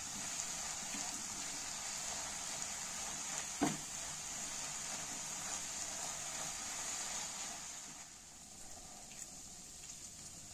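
A steady hiss with a single short knock about three and a half seconds in. The hiss becomes quieter about eight seconds in.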